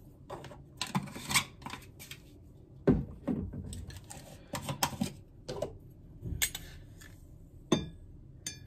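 A metal spoon clinking and scraping in jars and against a ceramic mug, with knocks as a plastic jar lid is twisted off and set down, while a cup of instant coffee is made. The sharpest knocks come about three seconds in and near the end.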